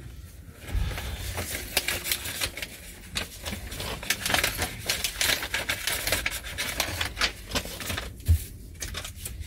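Rapid, irregular clicking and light rattling of small hard objects being handled, with a couple of dull low thumps.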